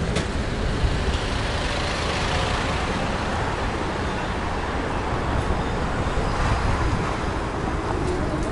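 Steady rush of city traffic and wind noise heard while riding an electric scooter along a street bike lane, with a low steady hum coming in near the end.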